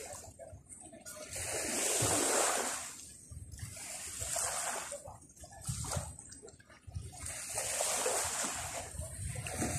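Sea waves washing up on the beach, each swell of splashing surf rising and falling away every two to three seconds.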